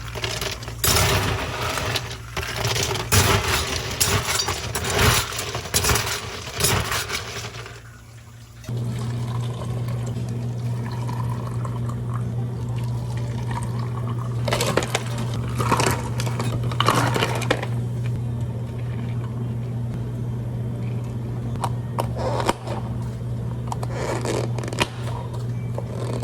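Drink preparation behind a cafe counter: ice and liquid poured with dense clinks and splashes for about eight seconds. Then a machine starts and runs with a steady low hum, with a few clinks over it.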